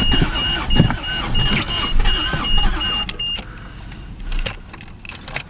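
A 1983 car's cold engine cranking on the starter without catching, while a dashboard warning chime beeps steadily. Both stop about three and a half seconds in.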